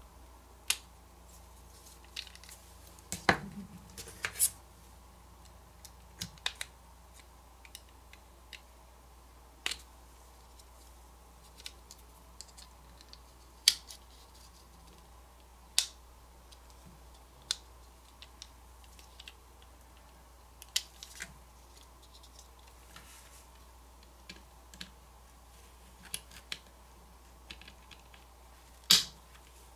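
Plastic case halves of a Ledger Nano X hardware wallet being pried apart with a thin metal blade and pry tool: irregular sharp clicks and snaps, roughly one every second or two, with a few louder ones, including one near the end.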